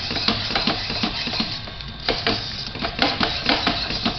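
A utensil scraping and clicking rapidly against a pan while stirring a thick chocolate-and-milk barfi mixture, with a short lull about halfway through.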